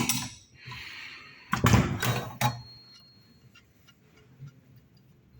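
Metal clinks and knocks of a 21 mm spanner working a fitting loose on an espresso machine's steam boiler: a click at the start, a short rasping noise, then a cluster of louder knocks about two seconds in, followed by faint ticks.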